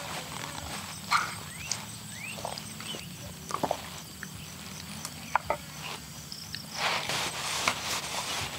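A wooden spoon scraping and clicking in a small bowl of food in short scattered strokes, then mouth sounds of eating, a spoonful taken and chewed, near the end.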